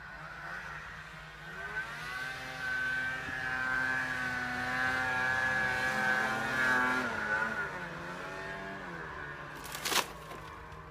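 Snowmobile engine revving: its pitch climbs, holds high for a few seconds, then falls away. A single sharp knock comes near the end.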